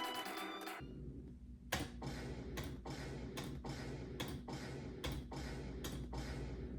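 Violin music breaks off about a second in. Then comes a steady series of sharp computer-mouse clicks, a little under one a second, over a low steady hum.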